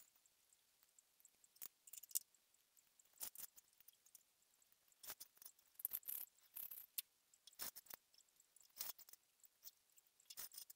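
Faint, irregular scratches and clicks of a fine cane strand being pulled and worked through a woven cane chair seat, with a longer scraping stretch about six seconds in.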